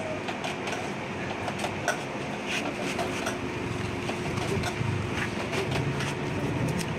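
Masking tape being pulled off the roll and pressed along the edge of a chest freezer: short crackles and clicks of the tape, over a steady low hum.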